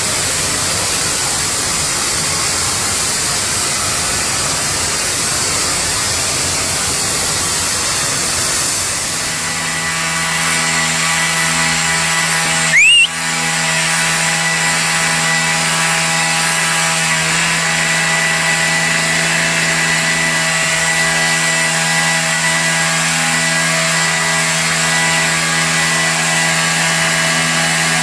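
Power tool running: a hissing, grinding noise for about the first nine seconds, then a steady motor whine. About thirteen seconds in there is a brief loud sweep in pitch.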